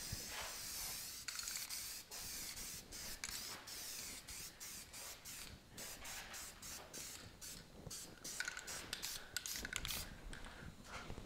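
Aerosol can of guide coat spraying onto primered bodywork, a longer spray at the start, then many short hissing bursts.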